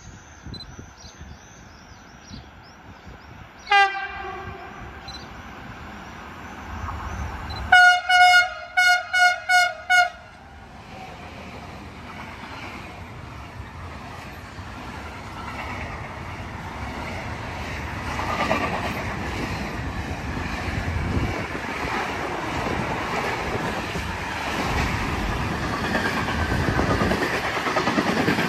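Birds chirping, then one short horn blast and a string of five quick train-horn toots, followed by a train approaching along the track, its noise building steadily.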